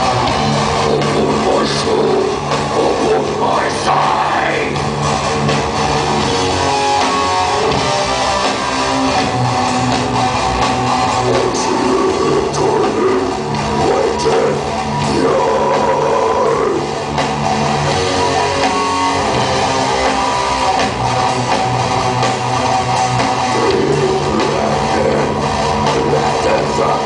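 A rock band playing loudly: electric guitars over a drum kit in a heavy metal style, continuous throughout.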